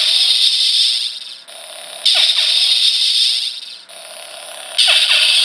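Lightsaber clash sound effects from a Star Wars sound-effect chip: harsh crackling bursts with falling sweeps, one already sounding at the start, another about two seconds in and a third near five seconds, each fading back to a steady hum in between.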